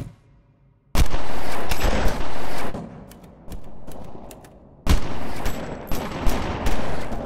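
Two long bursts of rapid, sharp cracks like automatic gunfire: the first starts about a second in, and the second starts near the five-second mark, after a single sharp click at the very start.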